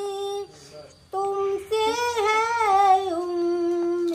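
A woman singing unaccompanied in long, held notes, with a short break about half a second in.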